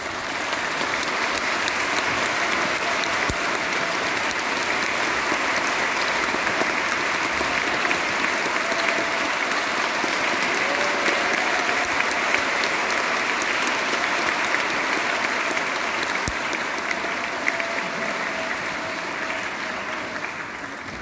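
Audience applauding steadily in a concert hall, the clapping dying away near the end.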